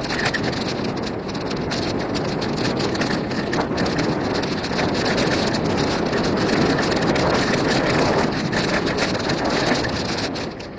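Bicycle tyres rolling fast over a dirt and gravel trail: a steady dense crunching with many small clicks and knocks from the bike, mixed with wind on the microphone. It fades near the end.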